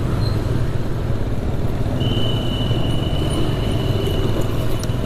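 Motorcycle engine running steadily at low road speed, heard from the rider's seat with wind and road noise. A thin high-pitched whine joins about two seconds in and lasts nearly three seconds.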